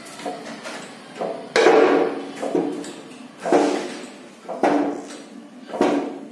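Heavy steel parts knocking and scraping on a steel press bed: a motorcycle crank half and its support block being shifted into place under a hydraulic press. There are about four separate clanks, each ringing briefly.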